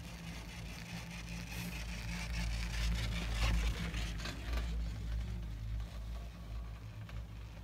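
Skis sliding and scraping over packed snow, with wind rumbling on the phone's microphone. The scraping grows louder and rougher between about two and four and a half seconds in.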